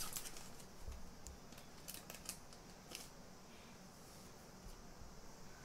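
Faint crinkling and scattered light ticks of a foil trading-card booster pack being handled as the cards are slid out of it.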